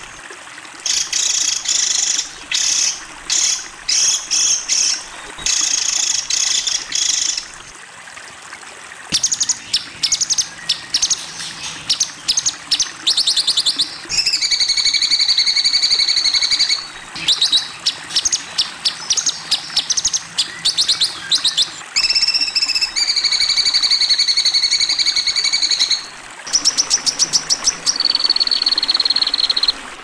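Loud, high-pitched songbird song from a masteran training recording: harsh bursts of rapid chattering notes and fast runs of repeated notes, alternating with long held whistles, the song changing abruptly every few seconds as recordings are spliced together.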